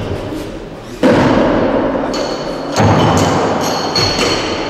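Rubber bumper plates being loaded onto a steel barbell sleeve: two heavy thuds about two seconds apart, with a high metallic ringing between and after them.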